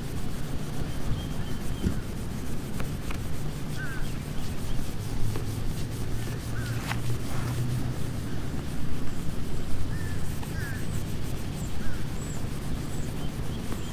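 Microfiber towel rubbed by hand over car paint behind a door handle, working heavy correcting compound into scratches: a steady scrubbing rub with a few small clicks.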